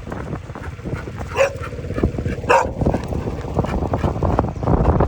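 Dog giving two short barks, about a second and a half in and again a second later, over a steady low rumble.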